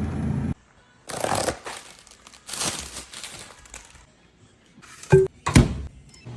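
Background music stops abruptly, then a microwave pizza's plastic wrapper crinkles in a few bursts as it is handled. Near the end come two sharp knocks about half a second apart, the loudest sounds here.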